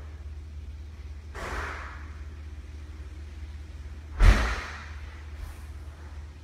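A steady low hum with a soft swish about a second and a half in, then a sudden loud thump with a hiss about four seconds in that dies away within half a second.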